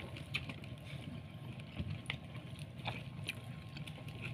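Scattered faint clicks and rustles of people eating with their hands from rice and fried fish laid on a plastic sheet, over a low steady rumble.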